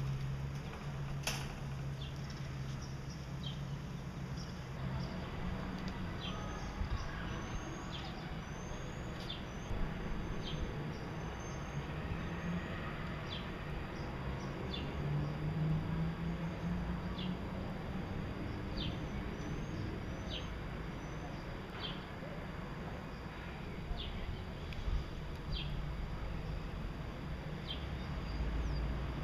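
Gouldian finches chirping: short, high calls, many rising in pitch, repeated about once a second, over a steady low hum.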